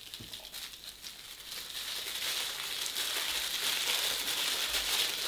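Paper wrapping crinkling as a small wrapped gift is unwrapped by hand, growing louder from about two seconds in.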